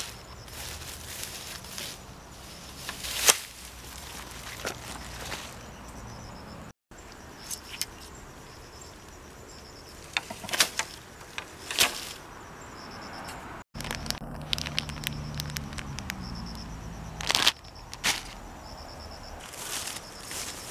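Bamboo poles being handled and set out for a trellis: a few sharp knocks and clacks with rustling through grass, over insects chirping in short repeated bursts in the background.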